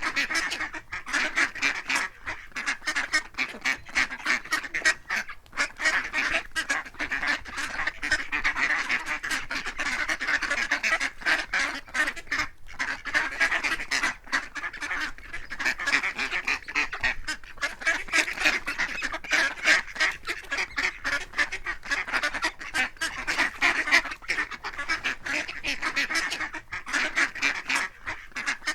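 A flock of ducks quacking continuously, many short calls overlapping with no pause.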